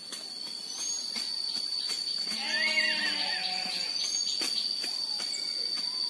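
A steady high-pitched insect drone, with an animal call lasting about a second, wavering and warbling, about two and a half seconds in.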